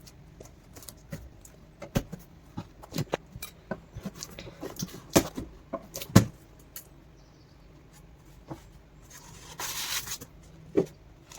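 Box and packaging being handled during the unboxing of an electric rice cooker: a string of irregular knocks and clicks, then a short rustle of packaging about nine seconds in.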